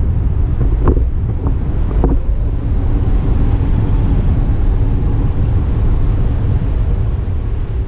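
Wind buffeting the camera's microphone during a tandem paraglider flight: a loud, steady rumble, with a few short squeaks about one and two seconds in.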